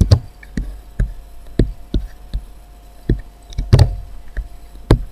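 About a dozen sharp clicks and taps at uneven intervals, a few with a dull low thump: keystrokes on a computer keyboard as an email subject line is typed.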